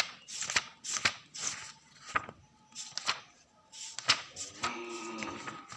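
Irregular sharp taps and clicks, one to three a second, from objects being handled close to the microphone, with a short voiced sound about five seconds in.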